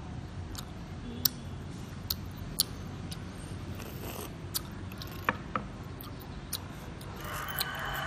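Close-up eating sounds from roasted clams: chewing and sipping from the shell, with about seven sharp clicks scattered through. A rushing noise rises near the end.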